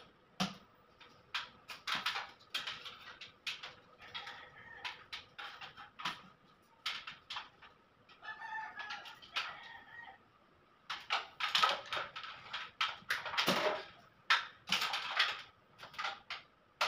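Chickens clucking, with a rooster crowing for about two seconds some eight seconds in, over a scatter of short clicks and rustles that get denser and louder in the last few seconds.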